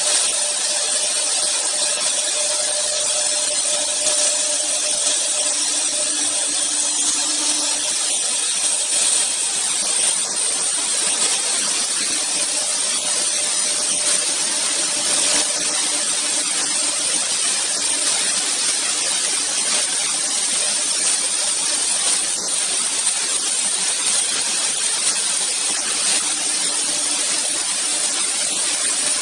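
Two router spindles of an AccTek AKM1325-2 double-spindle CNC router cutting grooves into a wooden board. The machine gives a steady, loud hissing whine.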